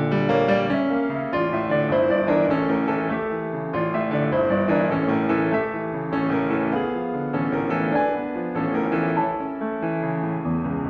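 Piano music: a continuous run of single notes and chords.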